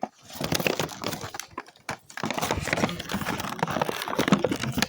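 Toy packaging being opened by hand: continuous rustling and crackling as the box and its inner packing are handled and pulled apart, louder in the second half.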